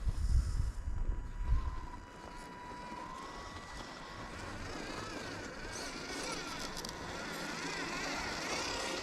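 RC crawler's electric motor and gearbox whining as it drives, the pitch wavering up and down with the throttle. A loud low rumble fills the first two seconds.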